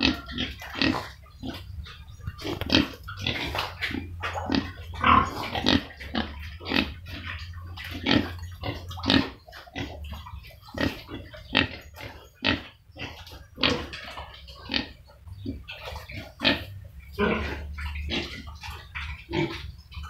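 A group of young pigs in a pen grunting, short irregular grunts coming one after another, at times several a second, over a low steady hum.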